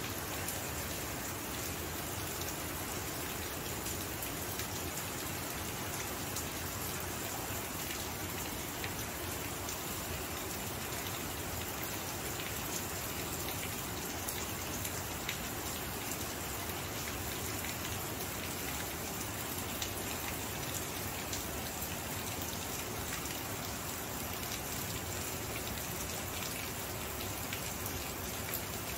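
Steady rain falling, a continuous even hiss with many fine drop ticks.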